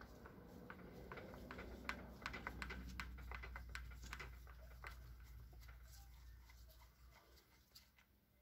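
Faint, irregular clicks and ticks of a screwdriver turning screws out of the plastic housing of a DeWalt DCH273 hammer drill, thinning out toward the end.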